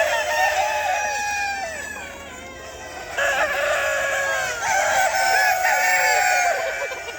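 Several roosters crowing over one another amid a flock of chickens. The crowing dies down about two seconds in and swells again a second later.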